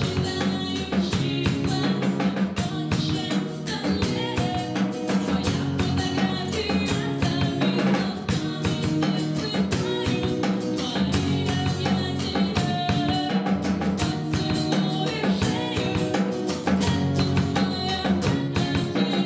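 Live song performance with a drum kit keeping the beat under pitched instruments.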